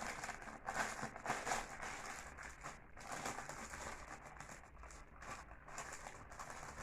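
A packet of red velvet cake mix crinkling and rustling as it is handled, faintly and irregularly.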